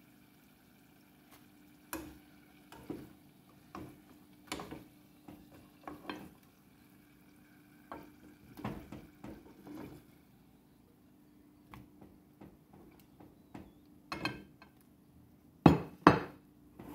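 Metal kitchen tongs clicking and knocking against a saucepan as french fries are lifted out of the frying oil, a sharp clink every second or so over a faint steady hum. Two louder knocks come near the end.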